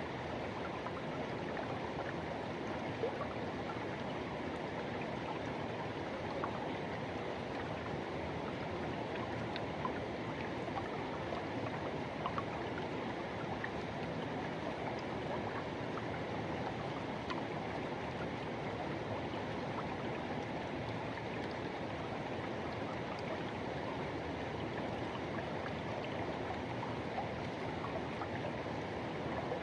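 A forest river rushing and gurgling steadily over its bed, with small splashes and ticks scattered through it.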